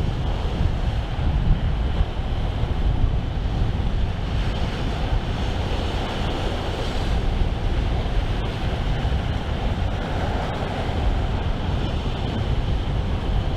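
Strong wind buffeting the microphone: a steady, rumbling noise heaviest in the low end.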